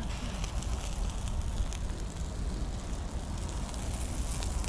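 Sausages sizzling on a charcoal grill: a steady hiss with scattered small crackles from the hot coals.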